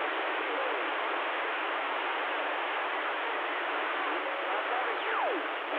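Stryker CB radio receiving band static: a steady rushing hiss from its speaker with faint distant voices under it. Near the end a whistle falls sharply in pitch.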